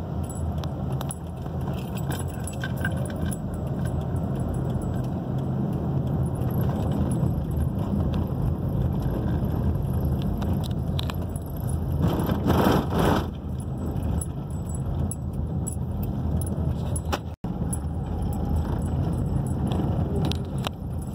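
A car driving on a town road, heard from inside the cabin: a steady rumble of engine and tyre noise with light rattling clicks. A louder rush of noise comes about twelve seconds in.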